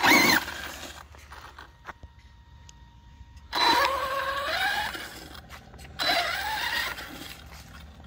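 Arrma Fire Team RC truck's brushless electric motor whining in three short bursts of throttle, at the start, midway and near the end, its pitch rising as the truck speeds up each time.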